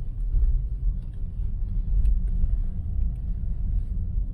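Steady low road and tyre rumble of a moving Tesla Model S, heard from inside the cabin, with a few faint ticks over it.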